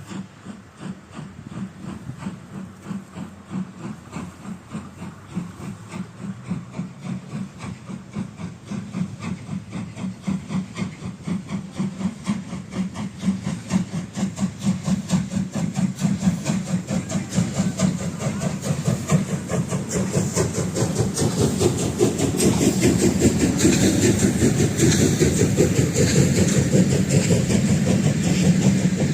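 Steam locomotive working a train, its exhaust beating in a fast, even rhythm that grows steadily louder as it approaches, with steam hiss rising over the last part.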